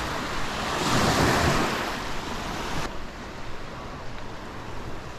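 Small waves washing onto a sandy lake beach, with wind on the microphone. There is a swell in the wash about a second in, and the sound turns quieter and duller about three seconds in.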